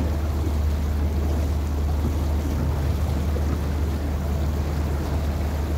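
A small boat's engine running at low speed, a steady low drone, with water and wind noise over it.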